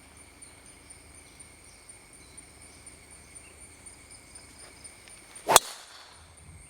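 A single sharp crack of a driver striking a golf ball off the tee, about five and a half seconds in. Underneath is a steady high-pitched drone of rainforest insects, cicada-like, with two held tones.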